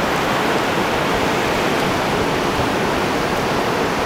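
Surf on a sandy beach: a steady rush of breaking waves and shallow wash running over the sand.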